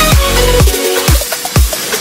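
Electronic dance music with a heavy kick drum about twice a second.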